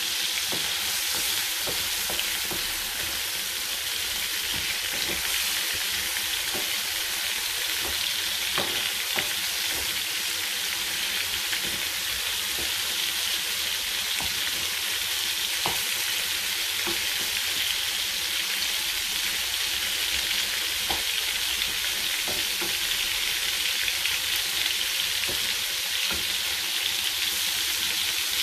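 Prawns frying in hot oil in a pan: a steady sizzle with small pops and spits, and now and then the scrape of a wooden spatula stirring them.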